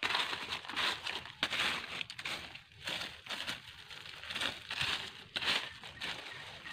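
Footsteps crunching through dry fallen leaves on a forest floor, about two steps a second.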